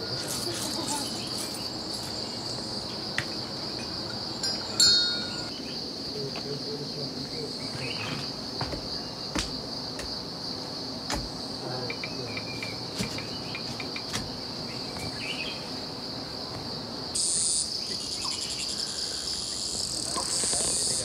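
Steady, high-pitched chorus of insects in the forest, with scattered light knocks and scrapes and one short louder sound about five seconds in. A second, hissier high insect sound joins near the end.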